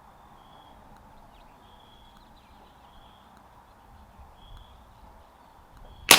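A single shot from a CZ 457 AT-ONE bolt-action rimfire rifle near the end, a sharp crack that rings off briefly. Before it, a quiet outdoor background with faint short high chirps repeating about once a second.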